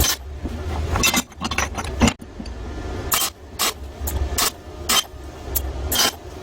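A series of sharp knocks and clinks of hard objects, unevenly spaced, over a low hum.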